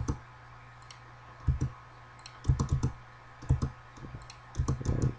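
Computer mouse and keyboard clicks, short and sharp, coming in small clusters about every second. They come from picking edges one after another for a fillet in CAD software.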